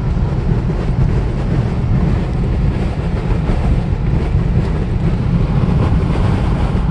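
Steady low road rumble inside a car cabin at highway speed: tyre noise and engine drone, with wind rushing over the body.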